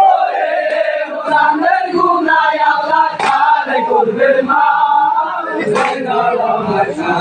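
A group of men chanting together in loud unison as a mourning chant. A sharp slap-like impact cuts through twice, about 3 and 6 seconds in.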